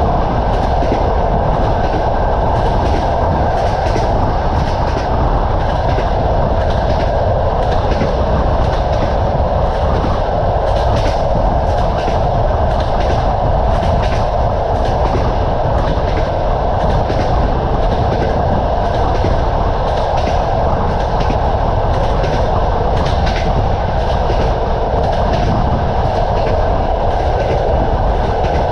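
Train running at speed, its wheels clacking over the rail joints again and again over a steady rumble.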